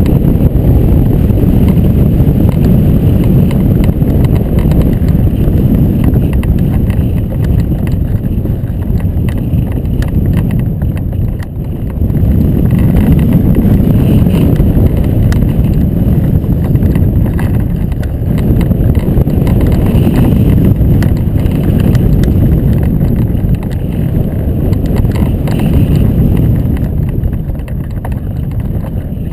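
Airflow buffeting a keel-mounted camera's microphone in hang glider flight: a loud, low, rushing rumble that swells and eases, dipping briefly about eleven seconds in and easing near the end.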